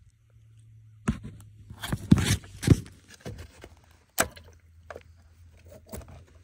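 A handful of sharp plastic clicks and knocks from a fuel-line quick-connector as its blue release tabs are pressed and it is worked off the Dodge Magnum's fuel pump module, over a low steady hum.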